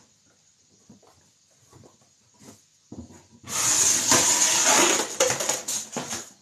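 Packaging rustling and crackling loudly for nearly three seconds as something is pulled out of a cardboard box, starting about halfway through after a few faint handling ticks.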